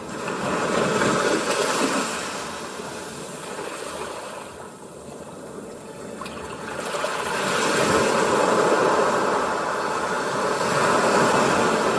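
Sea waves washing in: a rushing surge near the start that ebbs to a lull midway, then builds again through the second half.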